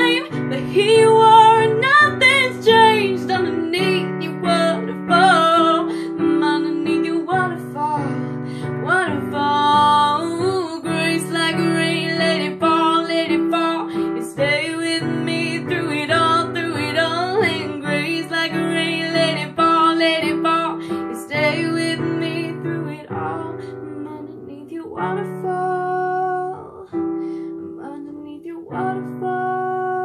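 A teenage girl singing wordless, wavering vocal runs over chords on a keyboard piano. The music thins out and gets quieter over the last several seconds.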